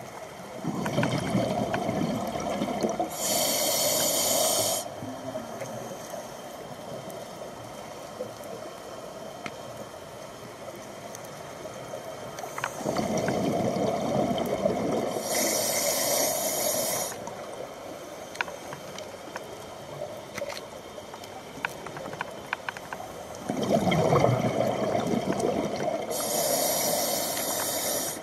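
Scuba diver breathing through a regulator underwater: three breath cycles about ten seconds apart, each a gurgling rush of exhaled bubbles followed by the hiss of an inhale.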